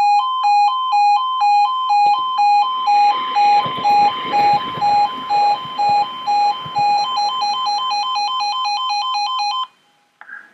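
E2S Appello level crossing alarm sounding a loud two-tone warble, switching between two pitches about twice a second, while a passenger train rumbles across in the middle of it. Around seven seconds in the alternation quickens, and the alarm cuts off abruptly near the end.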